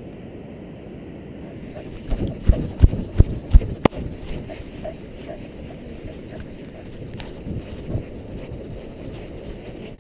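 Dog's collar camera rubbing and catching wind, with a quick run of about five heavy thumps around two to three and a half seconds in and a sharp click just after: the camera jolted by the dog's bounding strides.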